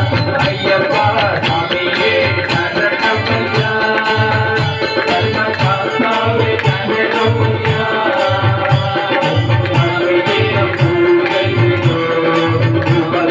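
Ayyappa devotional song: a melody over a steady drum beat, with evenly spaced jingling cymbal strokes keeping time.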